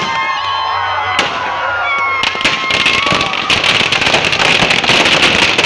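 Firecrackers packed inside a burning Ravan effigy going off in a rapid, dense crackle that starts about two seconds in and keeps building. Crowd voices are heard at first.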